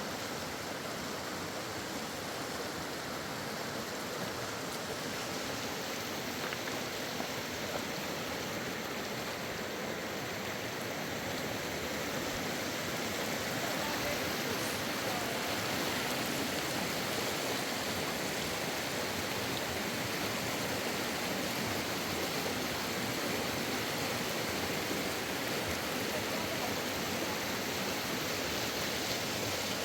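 Steady rushing of running water, growing slightly louder about halfway through.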